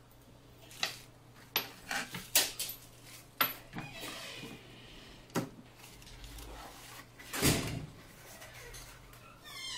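Hands working a microscope stand and its lens holder, a quick run of sharp clicks and knocks. Then a small cardboard box is handled and opened, with rustling and scraping, a knock, and a louder thump about seven and a half seconds in.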